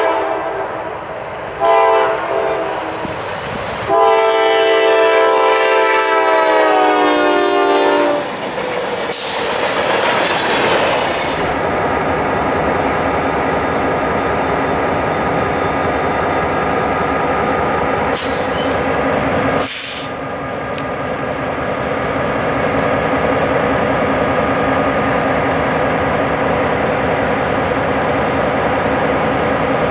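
A diesel freight locomotive's multi-chime horn sounds in several long blasts, its pitch dropping near the end as the train passes, and then the train rolls by. From about twelve seconds in, an EMD diesel locomotive idles steadily, with a short hiss about two-thirds of the way through.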